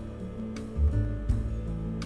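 Instrumental background music with held low notes that change every half second or so and a few short plucked notes.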